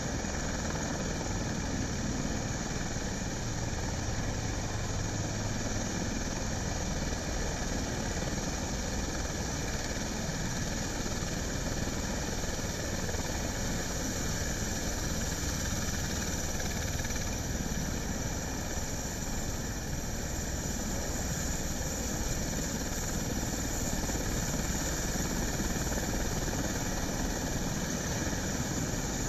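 Steady engine drone that holds the same level and pitch throughout, with no strokes or changes.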